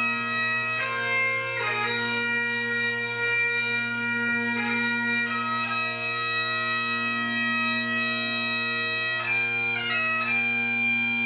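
Bagpipes playing a slow melody of long held notes over steady drones, one low and one an octave above.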